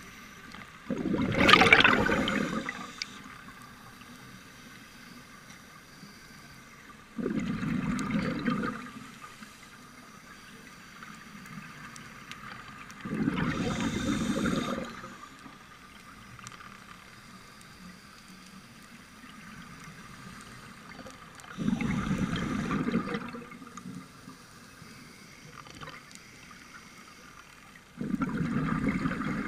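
Scuba diver's exhaled breath bubbling out of the regulator: five long bubbling exhalations at even intervals of about six to seven seconds, the first the loudest.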